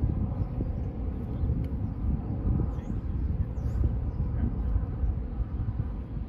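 Unsteady low outdoor rumble with no speech, with a few faint short high chirps in the middle.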